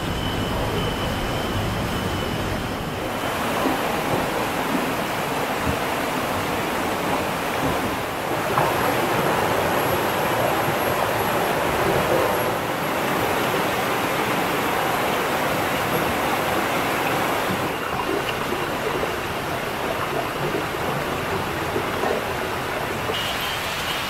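Shallow jungle stream rushing over rocks and small rapids, a steady rush of water that shifts in loudness and tone at a few points.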